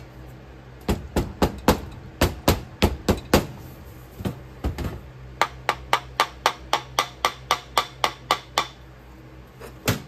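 Repeated sharp knocks rapping on a sand-casting flask to loosen a stubborn pattern from the packed sand: a quick, loud run of about nine knocks, a couple of single ones, then a steadier run of about thirteen at roughly four a second, and one last knock near the end.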